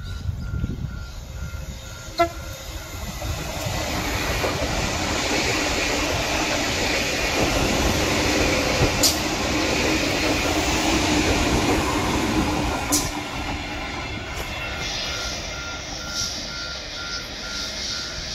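A train running past on the tracks, its rumble building over a few seconds, loudest about halfway through, then fading away.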